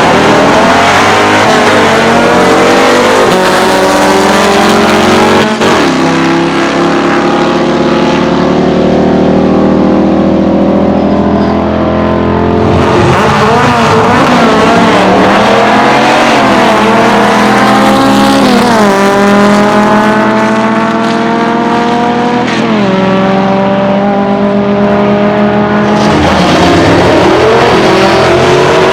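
Air-cooled VW Beetle drag-car engines at full throttle on a drag run. The pitch climbs and then drops sharply several times as the drivers shift up through the manual gearboxes.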